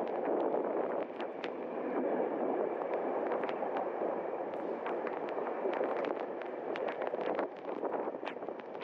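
Strong bora wind buffeting the microphone of a camera held at the side of a moving passenger train, a dense gusting rush mixed with the train's running noise. Many sharp ticks come at irregular intervals throughout.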